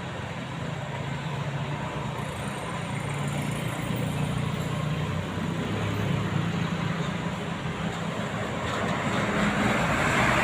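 Road vehicle engine running with road noise, steady and low, getting louder toward the end as it draws near.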